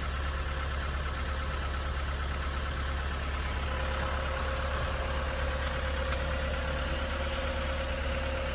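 Vehicle engine running steadily, a constant low hum with a steady whine above it.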